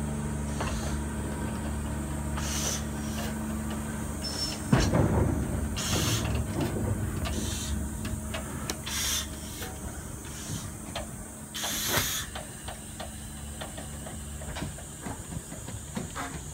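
Japanese C12 class tank locomotive C12 167 hissing in repeated bursts several seconds apart, after a steady low hum that is cut by a loud thump about five seconds in; scattered light clicks run between the bursts.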